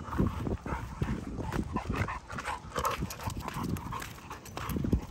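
Footsteps walking on wet pavement, with irregular knocks, while a large dog pants close by.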